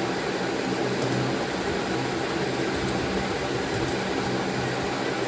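Steady fan noise with a low hum, with a few faint clicks in the second half.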